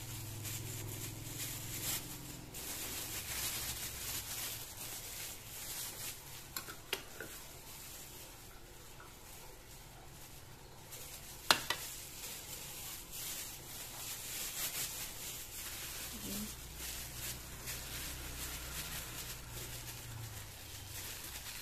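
Metal spoon stirring and scraping a thick, wet mashed-tempe dough in a bowl, with plastic food gloves rustling as the dough is worked into balls. One sharp click about halfway through.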